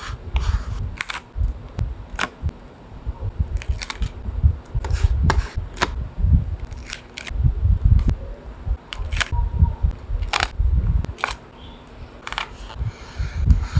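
Paper and stationery handled on a desk while a journal collage is put together: irregular crisp clicks and ticks, with soft low bumps against the tabletop.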